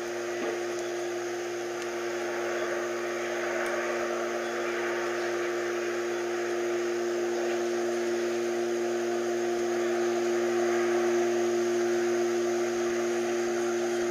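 Steady humming of unknown origin: two low, even tones under a hissing rush, slowly swelling louder and then easing off a little near the end. The recorder rules out the nearby transformer.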